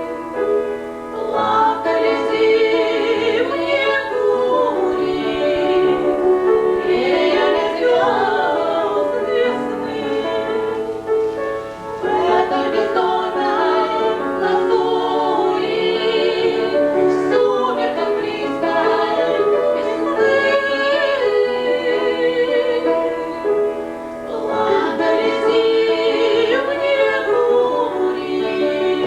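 Two women singing a romance in a classical, operatic style with wide vibrato, in long sung phrases with short breaths between them.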